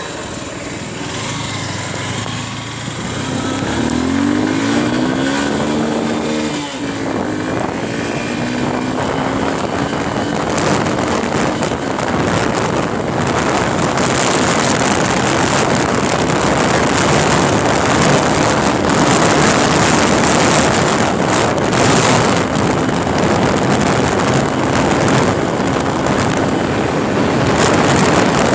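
Honda Unicorn's 150 cc single-cylinder four-stroke engine revving up through the gears under hard acceleration, with a gear change about six or seven seconds in. From about ten seconds in, wind rushing over the microphone grows and covers the engine as the bike holds high revs near 100 km/h.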